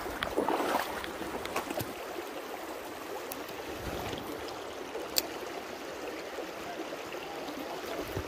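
Stream water running steadily, with a few small clicks and one sharper click about five seconds in.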